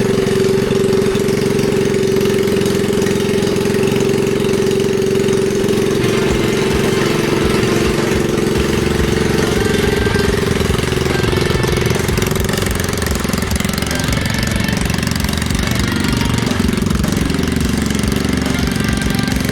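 Predator 212cc single-cylinder four-stroke engine on a mini bike running hard. It holds a steady pitch at first, then rises and falls in pitch in the second half as the throttle and speed change.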